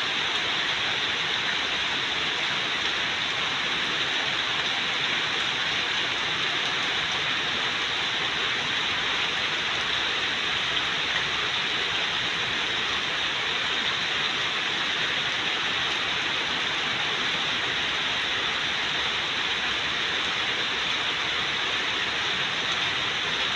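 Heavy rain falling steadily on garden foliage and a wet dirt path, an even hiss with no breaks.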